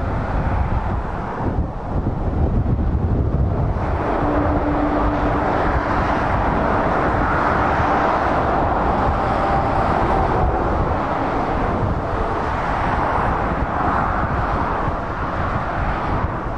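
Traffic on a dual carriageway: lorries and cars driving past with a continuous rumble of tyres and engines, and a faint whine that comes and goes as vehicles approach.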